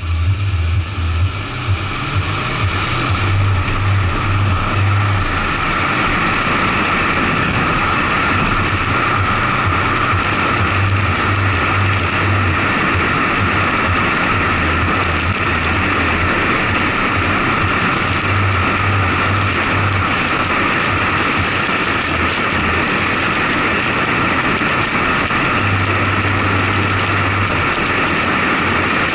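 Steady wind rush and tyre-on-road noise from a moving truck, picked up by a camera mounted on the outside of the truck body, with a low rumble underneath. The noise builds over the first few seconds as the truck gets up to speed, then stays even.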